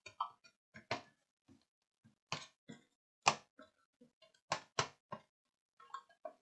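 Scattered light clicks and knocks of hands handling an opened Amiga 1011 floppy drive, its plastic case and drive mechanism and the cable connector at the back. There are about a dozen of them, with a louder knock a little past the middle.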